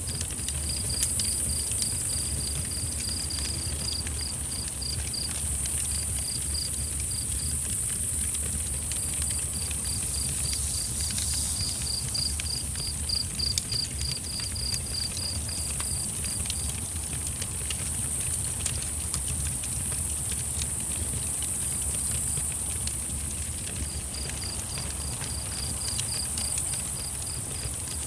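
Night insects: a steady high-pitched drone, with a cricket chirping in quick pulses about three a second, in runs broken by short gaps. A low steady rumble lies underneath.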